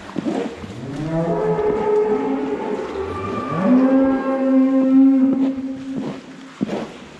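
Cow mooing in a barn: a short rising moo, then one long held moo, with a rake scraping over stall bedding near the end.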